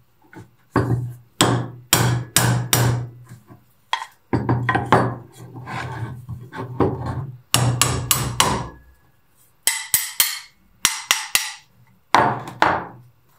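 Claw hammer striking a rusty metal plate from an old kitchen balance scale, to free a part that has just had penetrating oil. The blows come in several quick runs, each ringing briefly, with sharper, brighter knocks near the end.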